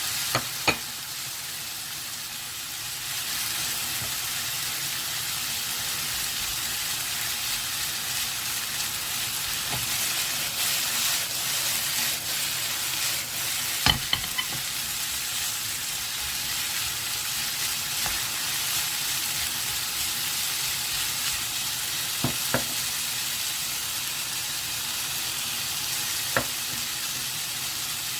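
Julienned potato strips sizzling steadily in oil in a frying pan as they are stir-fried, with a few sharp clicks of the stirring utensil against the pan.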